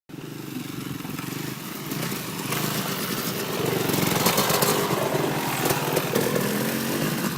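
Off-road vehicle engine running and pulling under throttle. About two and a half seconds in, a loud rushing noise joins it, and the whole sound grows louder towards the middle.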